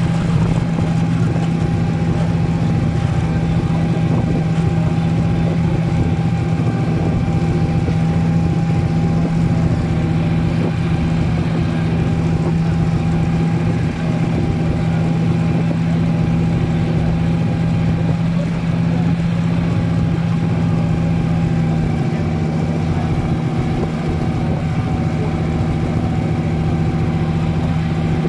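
Off-road vehicle's engine running at a steady, unchanging pitch, with a steady higher whine over it.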